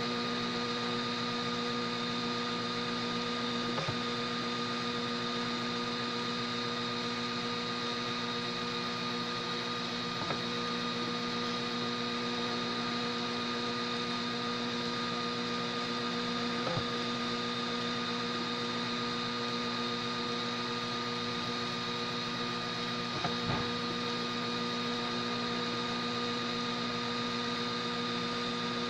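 Homemade DIY 3D printer running during a print: a steady hum made of several held tones, with a few faint clicks several seconds apart.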